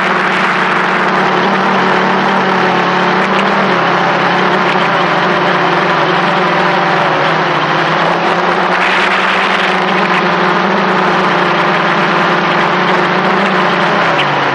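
Xiaomi Mi Drone quadcopter's electric motors and propellers buzzing steadily in flight, heard close up from the camera mounted directly beneath it. The pitch wavers a little as the drone flies.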